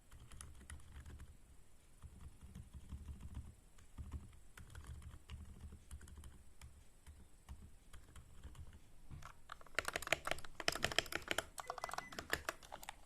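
Typing on a Varmilo VA87M tenkeyless mechanical keyboard with stock Cherry MX Black linear switches, keys clacking as they bottom out. The typing is light and scattered at first, then becomes a fast, much louder run of keystrokes from about ten seconds in.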